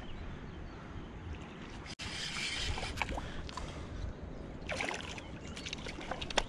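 A hooked asp splashing at the water's surface as it is played in close to the shore on a light spinning rod.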